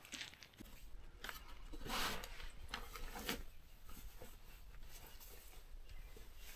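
Rustling and rubbing of a jacket's fabric as it is pulled from a backpack and handled, with a few short scrapes and clicks; the loudest rustle comes about two seconds in.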